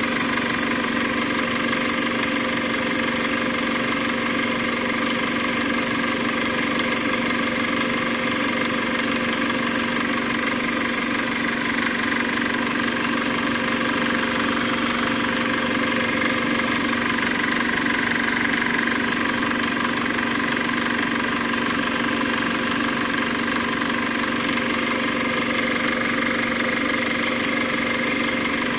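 A steady, unchanging mechanical drone with a few fixed tones, like a machine running.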